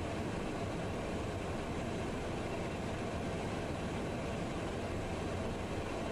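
Steady cockpit noise of a Cessna Citation jet on final approach: an even rush of airflow and engine noise with a low hum underneath.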